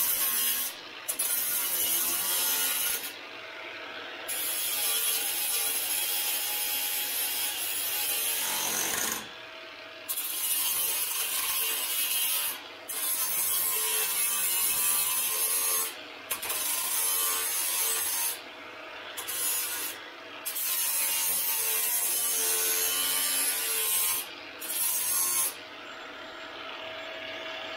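Cordless angle grinder grinding the rusty sheet steel of an International Scout's front end, a loud harsh grind with a steady motor whine, in stretches of a few seconds broken by brief lifts of the disc off the metal. Near the end it eases off to the quieter whine of the spinning grinder.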